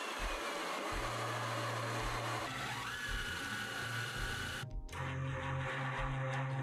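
A miter saw's falling whine as its blade winds down at the start, then a cordless drill driving screws into plywood: its motor whine rises as it speeds up about three seconds in and holds steady. The drill cuts off suddenly just before five seconds in and then runs again.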